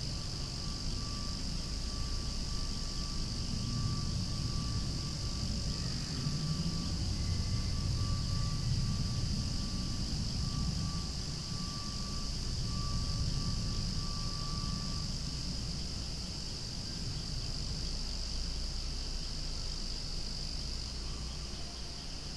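Cicadas singing in a steady, unbroken high chorus. Underneath, a low rumble swells and fades through the middle.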